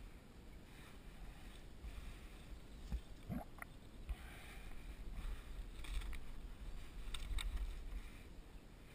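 Wind rumbling on the microphone, with scattered rustles and light water sounds as a landing net with a fish in it is dragged through reeds and grass onto the bank.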